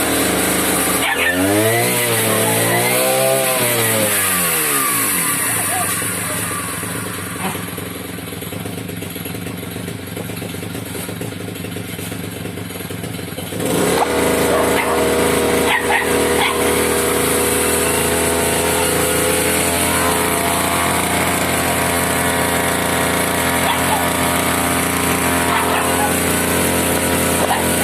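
Ogawa BG430 brush cutter's two-stroke engine is revved up and down a few times, then drops to idle for several seconds. About halfway through it is opened up again and held at a steady high speed.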